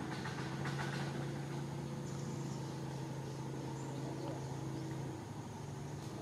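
A motor vehicle engine idling steadily nearby, a low even hum that shifts in pitch about five seconds in.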